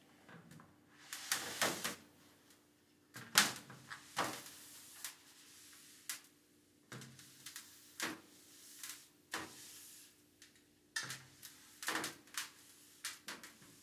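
A dry cloth rag wiping a painted tray in short strokes: about a dozen brief, uneven swishes with pauses between them, some with a light knock.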